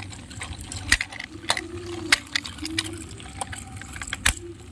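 Several sharp plastic clicks and taps as the battery cover of a toy robot is pressed and snapped shut, over a low steady background hum.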